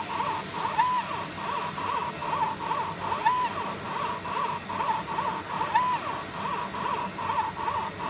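Laser marking machine running through a marking cycle: a quick run of short high chirps, with a longer held tone about every two and a half seconds as the pattern repeats.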